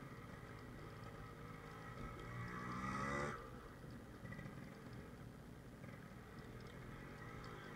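Yamaha RX100 two-stroke single-cylinder engine running at low speed, with a rev that rises about two seconds in and cuts off abruptly a little after three seconds.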